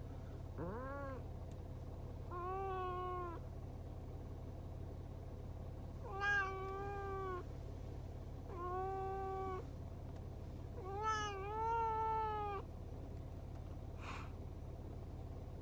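A cat meowing five times, each a drawn-out meow of about a second; the first is short and rising, the last comes in two parts. A steady low hum runs underneath.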